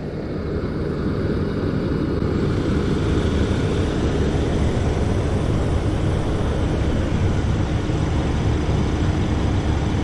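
Heavy diesel truck engine running steadily at idle, a constant low hum without change.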